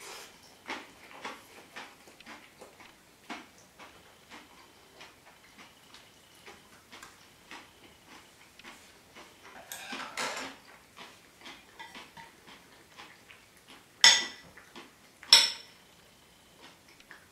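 Small clicks and clinks of a meal: a cat eating from a stainless steel bowl, and chopsticks and a spoon against a ceramic plate. A short clatter about ten seconds in, and two sharp clinks about a second and a half apart near the end.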